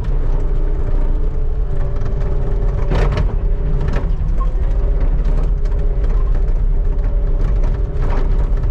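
Skid steer engine running steadily under load with a held whine over the rumble, and sharp knocks about three seconds in, again a second later, and near the end.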